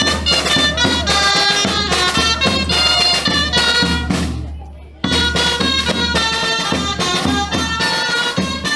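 Music with a high melody over a steady low bass. It fades out about four seconds in and starts again abruptly about a second later.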